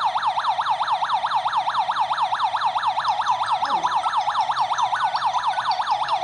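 Electronic siren of a WL-JT-10GDT Wi-Fi/GSM home alarm system sounding an alarm: a fast warble sweeping up and down in pitch about four to five times a second, at an even loudness.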